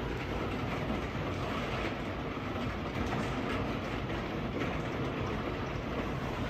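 Heavy rain drumming steadily on the glass of a wooden-framed roof skylight, heard from the room beneath it. It makes a dense, rattling patter, like water boiling in a thin aluminium pot.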